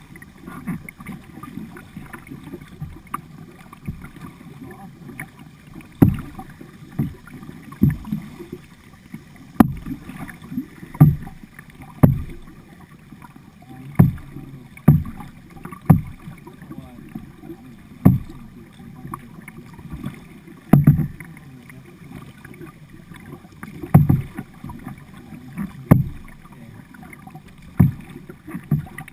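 Kayak paddle strokes, a sharp knock with a splash every second or two, over a steady low rush of floodwater moving past the boat.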